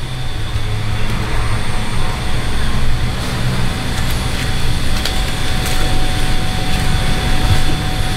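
Steady low mechanical rumble, like an engine or machine running, with a few faint clicks of side cutters snipping plastic-coated wire mesh.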